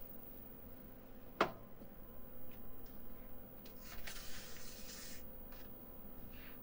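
A single sharp click about a second and a half in, then a second or so of soft rustling, over a faint steady electrical hum.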